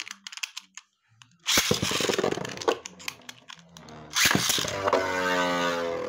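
Beyblade spinning tops in a plastic dish stadium: a sudden loud launch about a second and a half in, then the top whirring and scraping across the plastic. A second loud whir starts about four seconds in and turns into a steady humming tone as two tops spin together.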